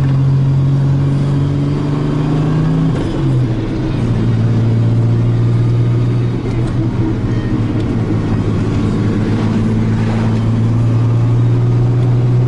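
Turbocharged car engine under way, heard from inside the car: a steady drone that drops in pitch about three seconds in, then climbs slowly as the car pulls.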